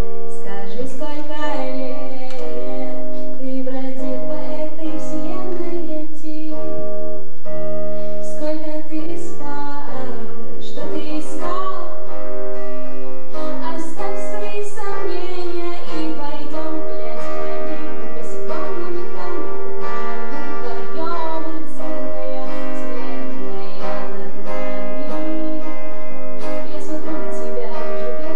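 A song: a voice, most likely a woman's, singing held notes over guitar accompaniment.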